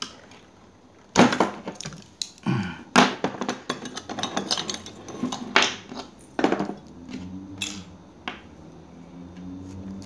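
Irregular sharp clicks and knocks of metal being handled: a multitool knife blade with freshly cut rough serrations is freed from a small aluminium bench vise and picked up. The two loudest knocks come about a second in and about three seconds in, with lighter clicks after.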